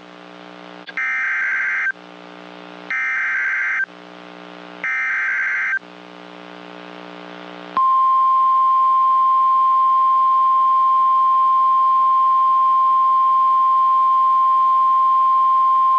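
NOAA Weather Radio Emergency Alert System tones heard over a radio receiver: three roughly one-second bursts of screechy SAME digital header data, then, about eight seconds in, the loud, steady 1050 Hz warning alarm tone. The sequence signals that a new warning message is about to be broadcast. A low buzzing hum from the receiver lies underneath throughout.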